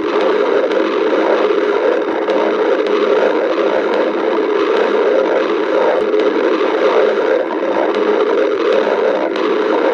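A person's stomach growling, picked up close and loud: a steady rumbling hiss with no break.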